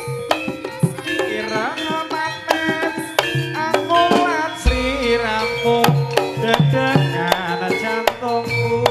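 Live Javanese jaranan music: hand drums beating a busy rhythm over ringing struck metal notes and a wavering melody line, with a deep gong stroke about halfway through.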